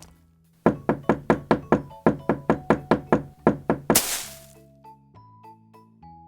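Background music: a run of evenly repeated percussive hits, about four or five a second, over held notes, ending in a bright swell about four seconds in, then soft sustained notes.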